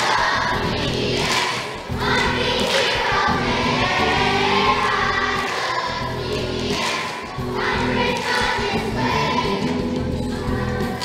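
A Vacation Bible School song: a group of voices singing together over instrumental music.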